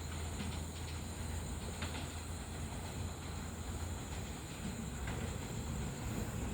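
Train running: a steady low rumble with a few faint clicks.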